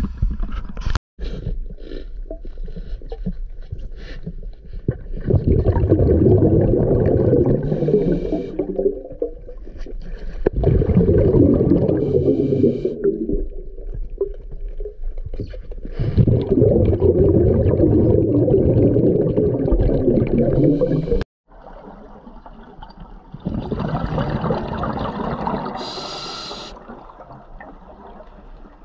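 Underwater scuba breathing: bubbles from the diver's regulator rumbling past the camera in four long bursts, one every five seconds or so, with quieter gaps between breaths.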